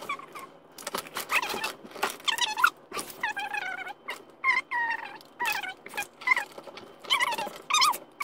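Sped-up chatter of boys' voices, shrill and squeaky like chipmunks, with the words unintelligible.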